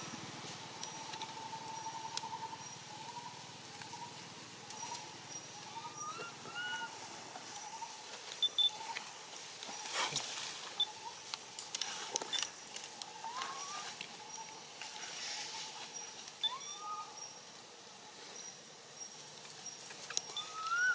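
Baby long-tailed macaque giving short, rising squeaky calls every few seconds, faint over forest ambience. A few sharp cracks and rustles come around the middle.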